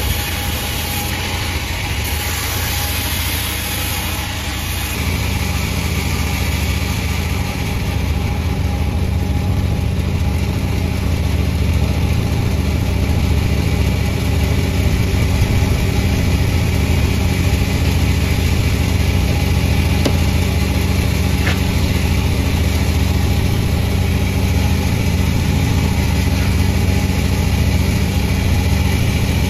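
Sawmill engine running steadily, growing a little louder and fuller about six seconds in, then holding steady.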